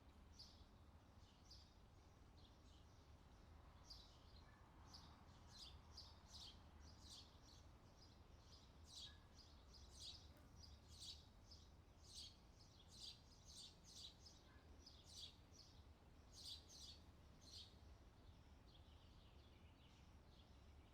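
Faint outdoor nature ambience: small birds give short, high chirps one to three times a second over a steady low background rumble.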